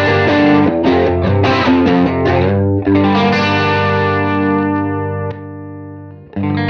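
Electric guitar played through a UAFX Brigade chorus & vibrato pedal into a UAFX Lion '68 Super Lead amp pedal in Super Bass mode, with a little overdrive grit. A quick run of picked notes and chords, then a chord left ringing and fading, and a new chord struck near the end.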